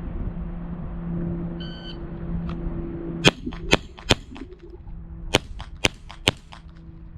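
A short electronic beep from a shot timer, then six 9mm shots from a Glock 17 pistol. The shots come in two quick groups of three, about a second apart, over a steady low hum.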